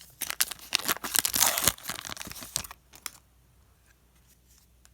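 A hockey card pack wrapper being torn open and crinkled, with a rapid run of sharp crackles for about three seconds. The crackling then stops, leaving only a few faint ticks.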